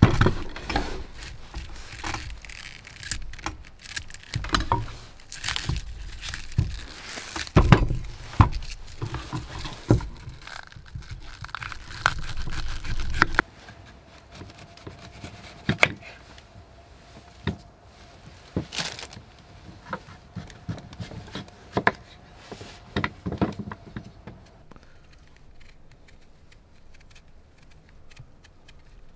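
Kitchen knives cutting and peeling white turnips on wooden cutting boards: crisp slicing and scattered knocks of the blades on the boards, busy and louder in the first half, sparser after that.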